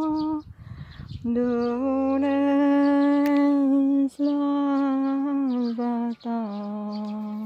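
A woman humming a slow religious tune in long, steady wordless notes that step down in pitch toward the end, with a pause for breath about half a second in.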